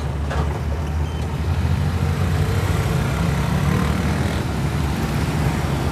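A car driving in city traffic: steady engine and road rumble from the moving car.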